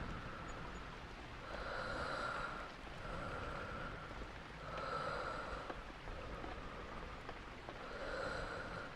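A person breathing slowly and evenly, close up: about three full breaths, each a stronger and a softer half, roughly every three seconds, over steady rain.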